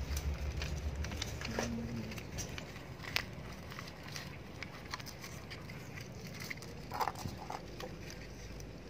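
Paper crackling and rustling as it is pressed by hand over the stamped engine number on the crankcase, with many scattered small clicks. A low hum fades out in the first second and a half.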